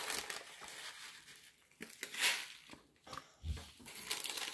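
A plastic snack packet crinkling and crunching in short, scattered bursts, loudest a little past two seconds in.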